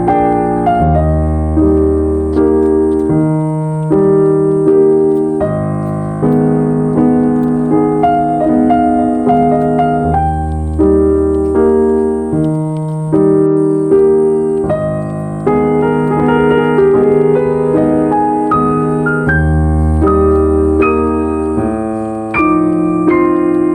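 Background piano music: a gentle, steady melody of chords and single notes.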